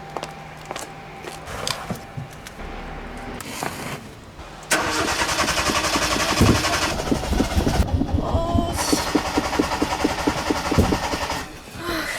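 Hyundai Accent's starter cranking the engine on a cold start, a loud rhythmic churning that begins suddenly about five seconds in and stops near the end with the engine not catching. A few faint clicks come before it.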